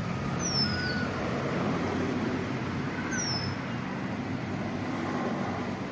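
Steady rumble of road traffic, with two short, high bird whistles, each falling in pitch, about three seconds apart.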